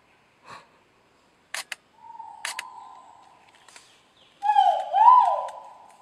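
Great argus calling: a loud two-note call near the end, each note a swooping whistle that dips and rises back up with a long ringing tail. A fainter single note comes about two seconds in. A few sharp clicks fall between them.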